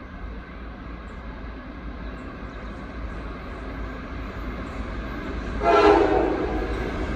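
Norfolk Southern coal train's lead diesel locomotives approaching, their low engine rumble growing louder. About five and a half seconds in, the locomotive horn sounds one short blast.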